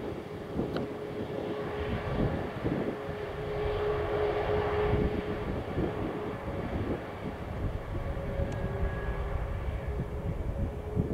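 Airbus A321neo airliner's jet engines running: a steady rushing hum with a held droning tone, swelling about four seconds in and then easing a little.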